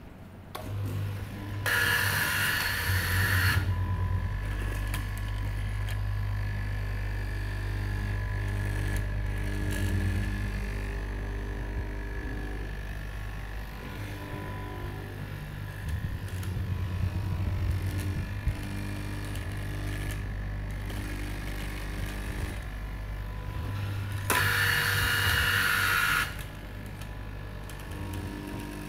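Electric straight-knife cloth cutting machine running with a steady motor hum as its blade cuts through a stack of knit fabric. Two louder, hissier stretches of about two seconds each come in near the start and about three-quarters of the way through.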